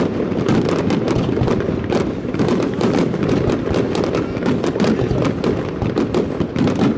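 Fireworks finale barrage: shells bursting in rapid, continuous succession, several sharp bangs a second over an unbroken low rumble.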